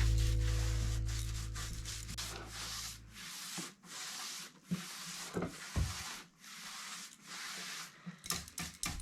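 Background music fading out, then repeated hand rubbing strokes on wood, back and forth roughly once a second.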